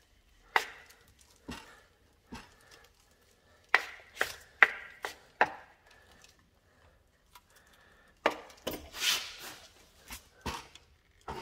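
Hand trowel tapping and scraping on wet decorative plaster as it is worked in circular strokes to form a texture pattern. A string of sharp taps comes in the first half, then a longer rasping scrape about eight seconds in.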